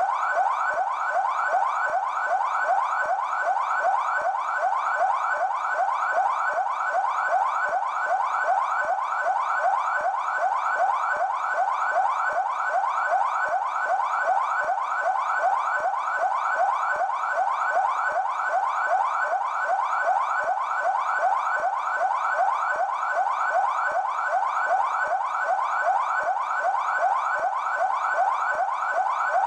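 Police siren on the yelp setting, as used by São Paulo's Military Police: a fast, unbroken rise and fall in pitch, about three sweeps a second, at a steady level.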